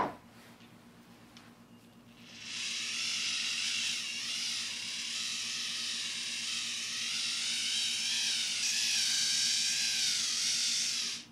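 Hand-cranked fuel pump whirring steadily as it pumps glow fuel into a model engine's tank. The whir starts about two seconds in, wavers slightly in pitch, and cuts off just before the end. There is a sharp click right at the start.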